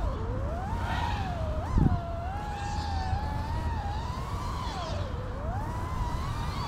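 Five-inch FPV freestyle quadcopter's brushless motors and props whining, the pitch swinging up and down as the throttle changes through flips and dives, over a low rumble. A brief loud low thump comes about two seconds in.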